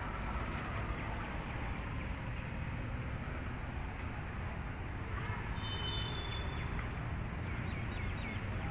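Outdoor ambience: a steady low rumble with faint bird chirps, and a brief high chirping call about five and a half seconds in.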